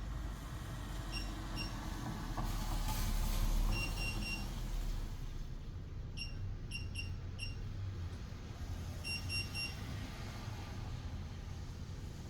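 Defiant electronic keypad deadbolt beeping as its buttons are pressed: short high beeps, some single and some in quick runs of three to five.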